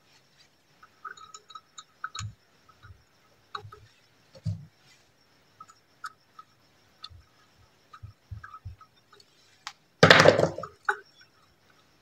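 Small clicks and taps of hands and a small screwdriver working the screws of a ceiling fan's plastic terminal connector block. About ten seconds in there is one louder, short rustling clatter.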